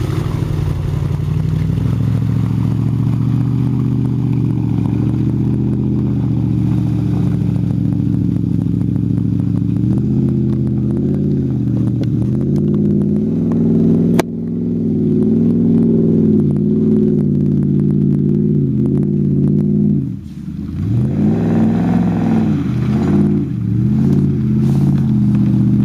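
Off-road 4x4 engine working hard as it crawls through deep mud ruts, running loud and steady at first, then revving up and down over and over in the second half as the driver works the throttle for grip.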